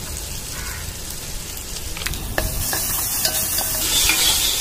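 Onions, tomatoes and green chillies sizzling in oil and ghee in an aluminium pot, with a wooden spatula knocking and scraping as it stirs in ginger-garlic paste. The sizzle grows louder about halfway through as the stirring gets going.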